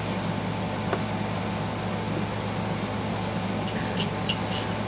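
Small metal parts and tools clicking and clinking against a Singer sewing machine as it is reassembled: a quick run of sharp clinks about four seconds in, over a steady room hum.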